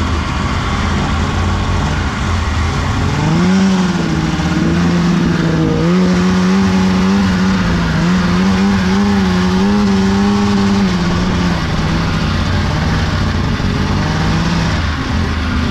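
Snowmobile engine running under throttle: its pitch climbs about three seconds in, holds with small rises and dips, and eases back down near eleven seconds, over a steady rumble.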